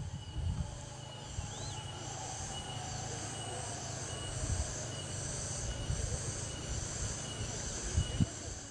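Chorus of insects in the tea fields, a high shrill buzz pulsing about twice a second over a steady high whine. Wind rumbles on the microphone, with a few handling bumps near the start and end.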